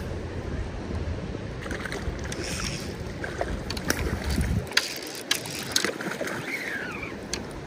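Wind noise on the microphone over flowing river water, the low rumble dropping away about halfway through, with a few sharp splashes as a hooked cutthroat trout thrashes at the surface.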